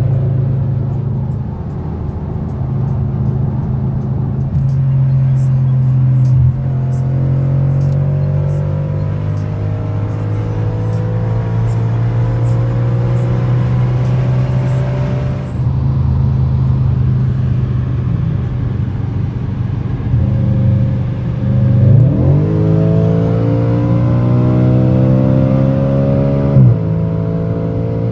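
Car engine accelerating hard through the gears, heard from inside the cabin at motorway speed. Its note climbs steadily in pitch and drops sharply at each upshift, about halfway through and again near the end.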